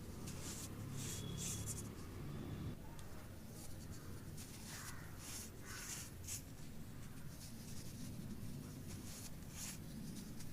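Faint, irregular crunching and scratching of baked baking soda being crushed and crumbled, with soft crackles every half second or so over a steady low hum.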